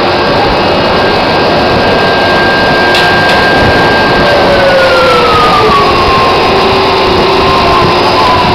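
Drilling rig floor machinery running loudly as a steady din. About four seconds in, a whine glides down in pitch and then levels off, as the travelling block and elevators are lowered toward the pipe during a trip out of hole.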